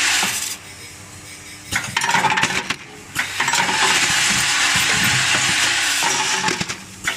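Small parts clattering through a high-speed counting and packaging machine, a dense run of small metallic clicks that drops away twice, about half a second in and again around three seconds in, before starting up again.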